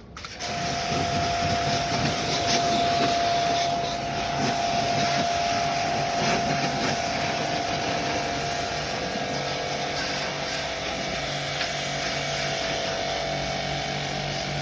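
A motor-driven machine starts abruptly and runs steadily, a loud hiss over a steady whine.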